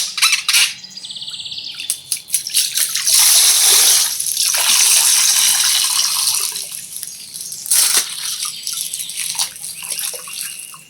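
Water gushing and splashing out of a burst plastic bag of coloured water, with sharp clicks and plastic crinkling around it. The rush of water is loudest in the middle and fades towards the end.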